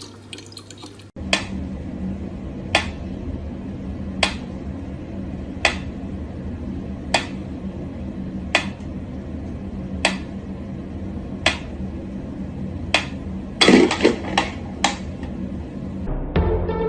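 Sharp taps or knocks at a steady pace, about one every second and a half, over a steady low hum, with a quick run of several taps near the end.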